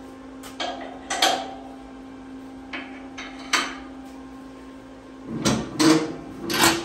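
A few sharp metal clicks and knocks as locking pins are set into the lift table's frame, then a run of louder clattering from about five seconds in as the hinged trap-door panel is lowered and drops into its opening. A steady hum sits underneath.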